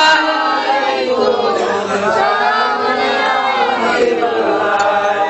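A group of voices chanting a devotional salawat refrain together in chorus, several pitches wavering and overlapping.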